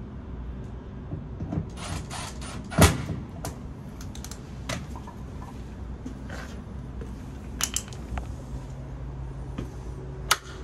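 Scattered clicks and knocks from tools being handled, the loudest a sharp knock about three seconds in, then a single sharp snap near the end as the wall-mounted isolator switch for the air conditioner is flipped.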